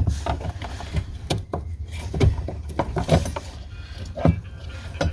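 Irregular knocks, clicks and scraping as the fuel pump assembly is handled and worked out of the fuel tank opening.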